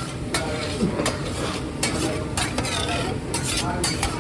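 Food sizzling on a hot hibachi griddle while metal spatulas scrape and clack against the steel surface in quick, irregular strokes.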